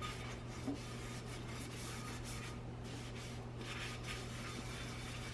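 Cloth towel rubbing over a cast iron skillet as it is dried by hand: soft, irregular swishing strokes over a steady low hum.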